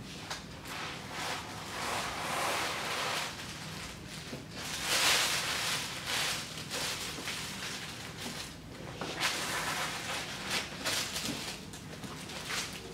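Irregular rustling and handling noises, typical of packaging and parts being moved about on a desk, swelling loudest about five seconds in.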